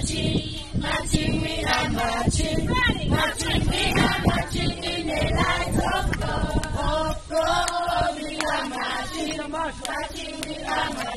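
A group of children and adults singing a song together.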